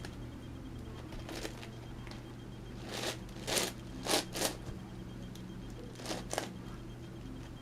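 Plastic layers of an MFJS Meilong 11x11x11 speed cube being turned by hand: about seven short scratchy clicks and rasps in small clusters, over a faint steady low hum.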